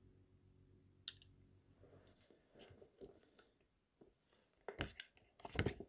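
Small objects and paper handled on a desk: a sharp click about a second in, light rustling, then two heavier knocks near the end. A faint low hum fades out partway through.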